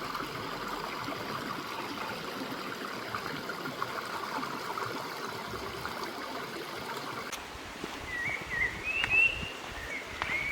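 Running stream water, a steady rush that cuts off about seven seconds in; then a small bird chirps and whistles several short phrases near the end.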